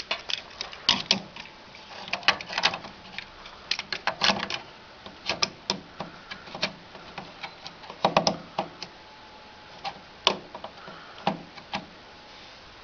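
Irregular clicks and knocks, some in quick clusters, as a RAM cooling fan is handled and fitted back into place over the memory sticks inside a desktop PC case.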